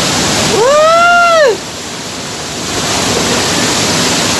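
Waterfall water rushing and churning over rocks, loud and steady. About half a second in, one drawn-out human call rises and falls in pitch over about a second. The water sound then drops a little softer for a moment.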